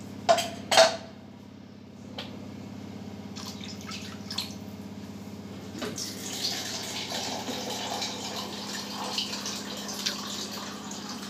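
Water heating in a pan of fried masala: two brief splashy knocks near the start, then from about halfway a light hiss with small pops and crackles as it starts to simmer, over a low steady hum.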